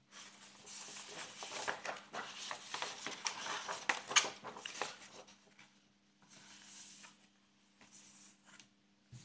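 Ballpoint pen scratching and paper rustling on a sheet of paper for about five seconds, then two shorter bursts of the same scratching near the end, over a faint steady hum.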